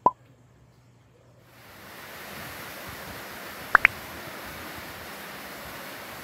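A short click at the start, then a steady hiss sets in about a second and a half in, with a quick pair of rising chirps near the middle.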